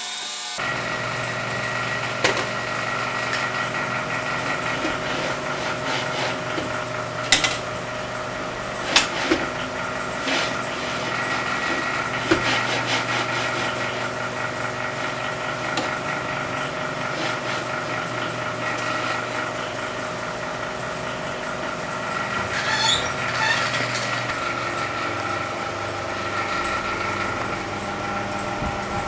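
Delta 3D printer running, its stepper motors giving a steady multi-pitched whine over a low hum, with a few sharp clicks and a brief scraping sound near the end.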